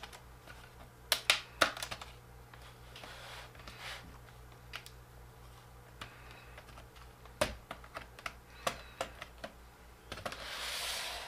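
Plastic snaps of an iBook G4's bottom case clicking as a flat-tip screwdriver pries them loose along the front seam: scattered sharp clicks and taps, the loudest about a second in and again past seven seconds, with a short soft rustle near the end.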